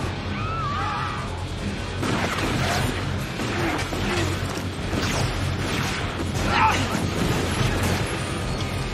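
Action-film soundtrack: tense music under a run of gunshots and crashing impacts, with shrill screams near the start and again about two-thirds of the way through.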